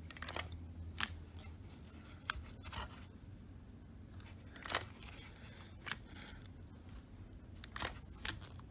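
Hand pop-rivet gun being squeezed stroke after stroke, giving a short sharp click every second or so as it draws a 3/16-inch rivet's mandrel to set the rivet.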